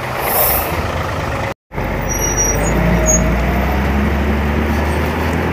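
Hino 500 truck's diesel engine running as the truck pulls away, a steady low engine sound. In the first second and a half there is a broad rushing noise, cut off by a brief dropout.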